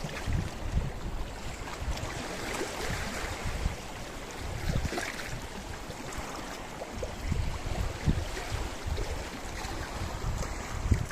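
Sea waves washing against a rocky shore in a steady hiss that swells every few seconds, with wind buffeting the microphone in low, irregular rumbles.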